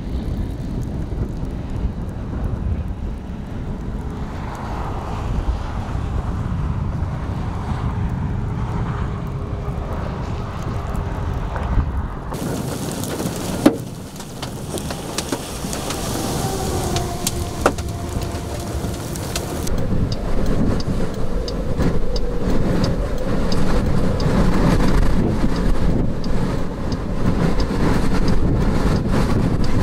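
Storm field noise: steady wind on the microphone with rain, changing across several cuts, with a stretch of hiss in the middle, a couple of sharp clicks and louder wind near the end.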